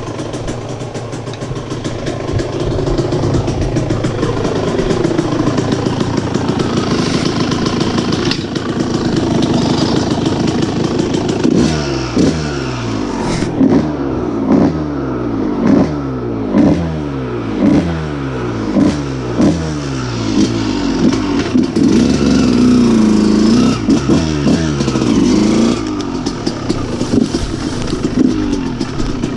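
Kawasaki KX125 125cc single-cylinder two-stroke motocross engine running, at first fairly steadily. About 12 seconds in, the throttle is blipped repeatedly, roughly once a second, each rev quickly rising and falling away. After that the engine holds higher, steadier revs as the bike rides off.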